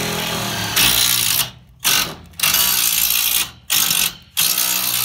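Power screwdriver driving a screw through the fan beam into the header beam, running in three bursts: the first to about a second and a half in, getting louder halfway through; the second from about two seconds to three and a half; the third starting near the end.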